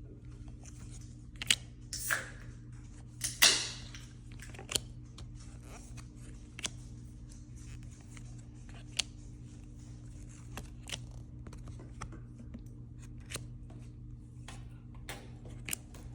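Hands opening the packaging of a boxed trading card set and handling the cards: a short tear or crinkle of wrapping about two seconds in and a louder one about three and a half seconds in, then scattered light clicks and taps of cards and plastic. A steady low hum runs underneath.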